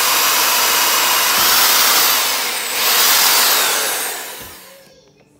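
Red corded electric drill running as it bores a hole in a painted wooden cabinet drawer front. Its whine drops briefly about two and a half seconds in, picks up again, then winds down near the end.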